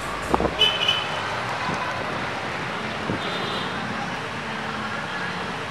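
Outdoor road traffic noise: a steady hum of passing vehicles, with a few sharp knocks in the first second.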